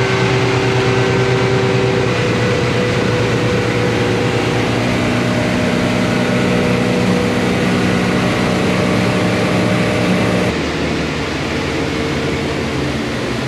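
Vehicle engine running steadily at cruising speed under a constant rush of noise, with an abrupt change in the sound about ten and a half seconds in.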